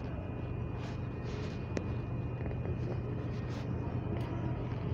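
Steady low hum and rumble of a train station, with a few faint clicks.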